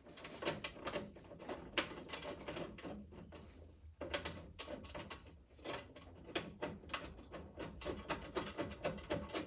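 Light, irregular clicks and taps of a hand tool and metal bolts being worked while fastening the hood latch support bolts, quickening into a run of clicks from about halfway.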